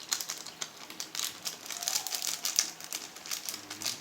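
Maggi tastemaker sachets crinkling and rustling as they are handled and emptied, a dense run of quick crackly clicks.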